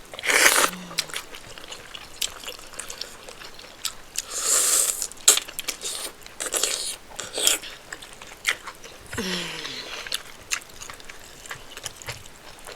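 Close-miked mouth sounds of someone eating rice, spinach stew and chicken: chewing and lip-smacking, with many small clicks and several short wet bursts.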